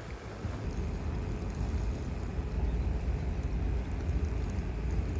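Steady low rumble of a running motor vehicle, with a faint steady hum over a wash of road or wind noise.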